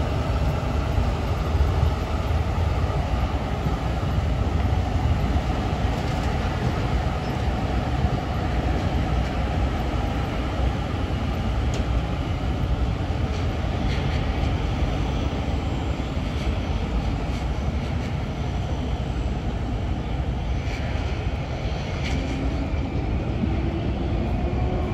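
Semi truck's diesel engine running with a heavy, steady low rumble as the tractor-trailer pulls slowly by; near the end the engine note rises as it picks up.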